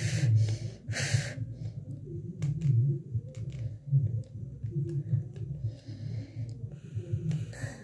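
Close breaths or sniffs into the microphone, two of them in the first second or so and another near the end, with a few faint clicks in between over a steady low hum.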